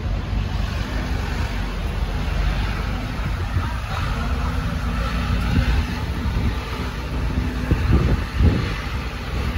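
Steady low rumble of road vehicles, with a few louder low thumps about eight seconds in.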